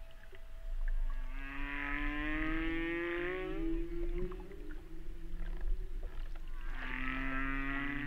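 Whale calls: two long pitched cries, the first rising slightly in pitch over about three seconds, the second starting near the end. A low steady rumble runs beneath.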